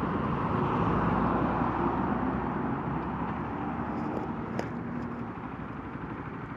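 Honda CBR125's single-cylinder four-stroke engine running under wind and road noise, growing gradually quieter.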